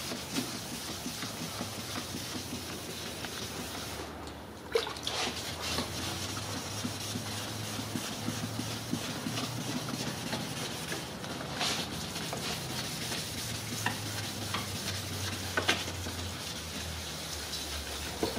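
2000-grit sandpaper on a hand sanding block wet-sanding a plastic headlight lens: steady wet rubbing strokes, with a few short clicks.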